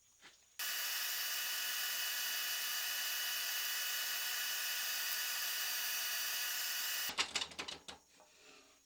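A power tool starts suddenly, runs steadily with a high whine for about six seconds and cuts off, followed by a quick run of clacks and knocks.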